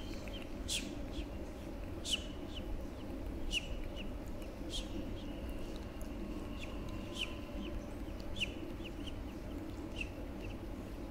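A small bird chirping repeatedly: short, sharp chirps about every second, unevenly spaced, over a low steady room hum.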